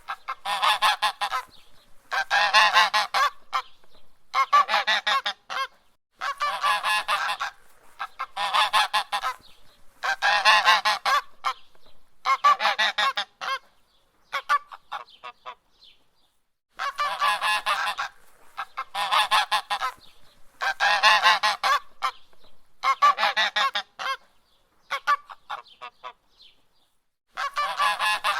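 Goose honking: bursts of several quick, harsh honks, one burst about every two seconds, with a short pause about halfway through and another near the end.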